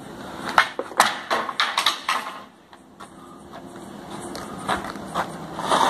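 A long wooden stick thrown down an opening, clattering and bouncing: a run of sharp wooden knocks in the first two seconds, then more scattered knocks near the end.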